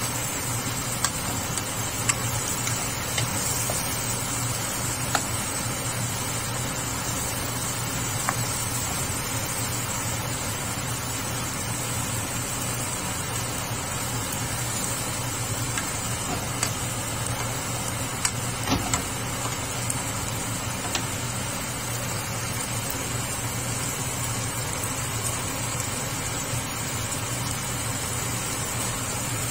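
Onions, tomatoes and meat sizzling in a nonstick frying pan as a wooden spatula stirs them. A few short knocks come as the spatula hits the pan, over a steady background hum.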